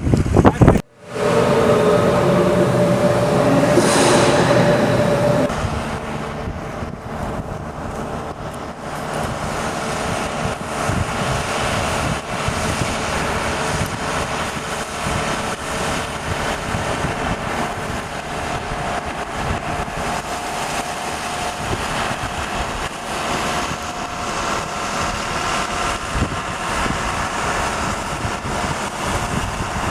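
Jet aircraft engine running: a steady roar with a held whine. It cuts out briefly about a second in, then returns as a pitched hum that gives way to a broader roar a few seconds later.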